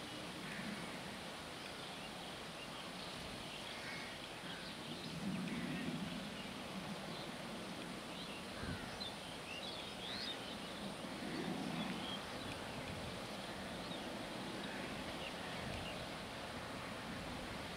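Faint outdoor background ambience, a steady low hiss with scattered faint bird chirps and two brief low swells.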